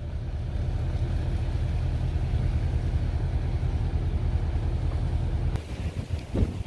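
Steady low rumble of a vehicle running, ending abruptly near the end.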